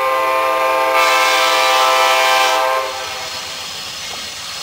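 Amtrak GE Genesis diesel locomotive's air horn sounding one long chord that cuts off about three seconds in. The running noise of the approaching train lies beneath it and carries on after the horn stops.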